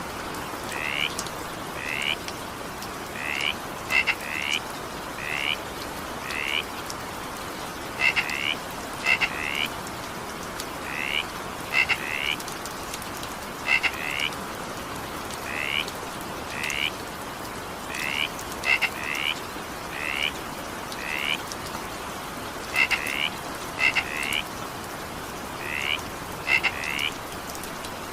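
Frogs croaking in short, high calls about once a second, often two in quick succession, over the steady hiss of rain.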